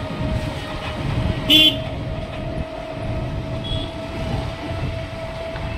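Riding in an open rickshaw: steady road and motor rumble with a steady whine, and one short vehicle horn toot about a second and a half in.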